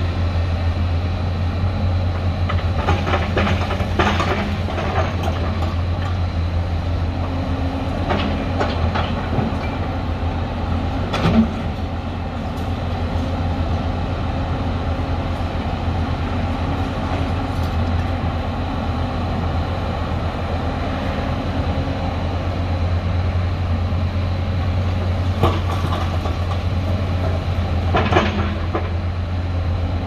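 Hyundai crawler excavator's diesel engine running steadily under working load, a deep even drone, with bursts of clatter as concrete rubble scrapes and knocks in the bucket; one sharper knock comes about eleven seconds in.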